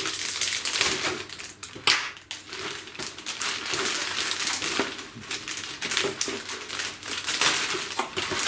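A plastic bag being opened and handled, crinkling steadily, with light clicks and clatter from the plastic model-kit sprues knocking together inside it.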